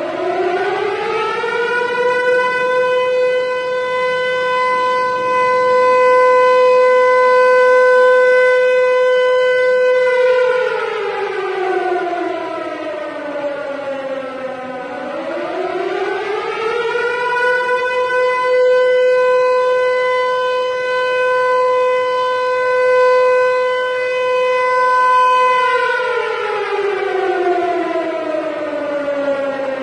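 Civil defense siren wailing, credited to a Harry O. Ricci Siro-Drone siren. Its single tone rises, holds steady for about eight seconds and falls away, then rises and holds again before falling near the end.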